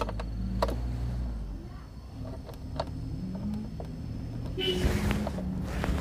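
A 10 mm wrench working the headlight-adjusting bolt on a scooter's front cowl, with a few light, sharp metal clicks. Under it runs the low hum of a vehicle engine, its pitch drifting up and down.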